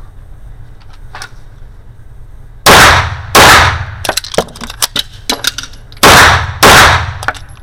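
A Bul 1911 single-stack pistol in 9x19 firing four shots in two quick pairs, each pair about half a second apart, with a ringing tail after every shot. Smaller clicks and clinks come between the pairs.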